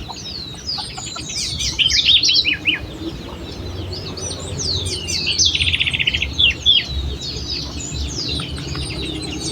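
Several wild birds singing and calling at once: many quick down-slurred chirps and whistles overlap, with a fast rattling trill about halfway through.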